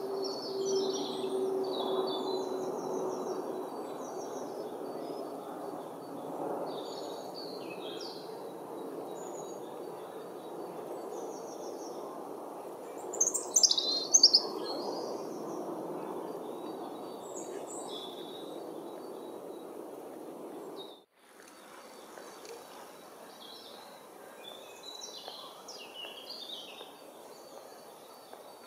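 European robin singing: short, high, warbling phrases separated by pauses, the loudest phrase about halfway through, over a steady low background noise.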